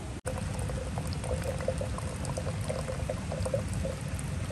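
Water pouring and splashing in a steady stream, with bubbling gurgles throughout. The sound drops out for a split second just after the start.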